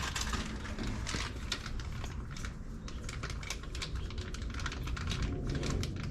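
Many light, irregular clicks and taps of hand work on a car door's plastic interior trim with a Phillips screwdriver, over a steady low background rumble.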